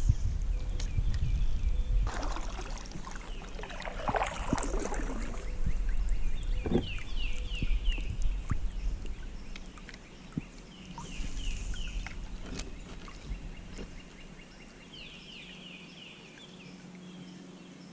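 Sounds of a kayak on the water: splashing and hull or handling noise, busiest in the first few seconds. A bird repeats a short song of quick falling notes every few seconds.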